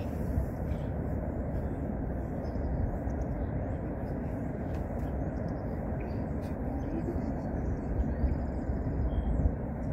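Outdoor wind rumble on the microphone, a steady low noise with a few stronger gusts near the end.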